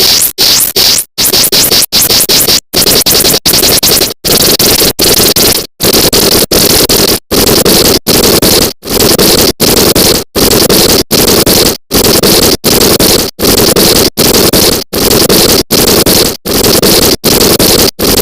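A sneeze sound, sped up and distorted many times over into harsh, noisy cacophony. It is chopped into a stuttering loop of short loud chunks that repeat a little faster than once a second, each broken by a brief gap.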